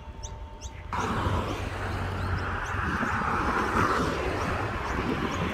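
Road traffic: the tyre and engine noise of cars passing on a main road, cutting in suddenly about a second in and loudest near four seconds as a car goes by close. Small birds chirp faintly.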